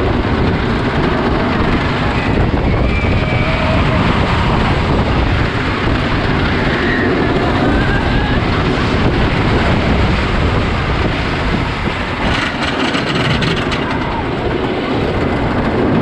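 GhostRider wooden roller coaster train running along its track at speed: a loud, steady rumble and rattle mixed with rushing wind.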